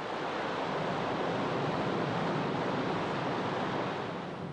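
Sea waves and surf: a steady wash of noise that swells in and fades away near the end.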